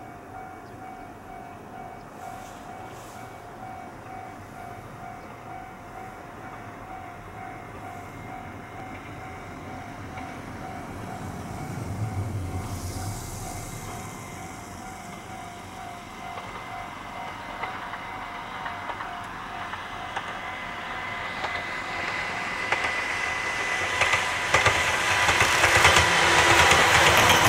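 Ohmi Railway two-car electric train approaching through snow, its running noise growing steadily louder until it is close and loud near the end, with rapid wheel clicks over the rail joints as it passes. Through the first two-thirds a level-crossing alarm pulses evenly in the distance, stopping about 21 seconds in.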